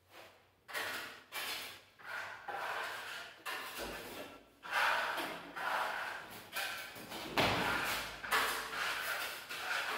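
Trowels scraping over a wall as a burnt-cement effect coating is spread and smoothed, in repeated short strokes about one every half to three-quarters of a second. A low thump comes about seven and a half seconds in, with a smaller one near four seconds.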